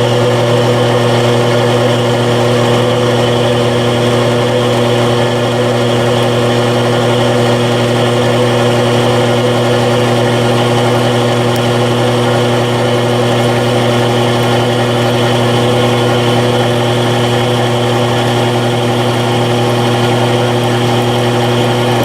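Drilling machine motor running steadily with an even hum while a clearance hole is drilled through a small metal pad.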